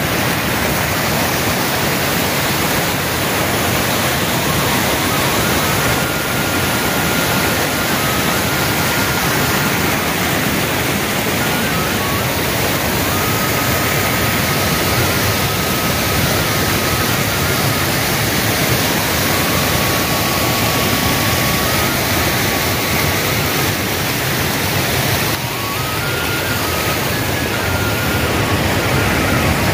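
Loud, steady rush of a muddy, rain-swollen mountain stream pouring over boulders and a washed-out road in flood.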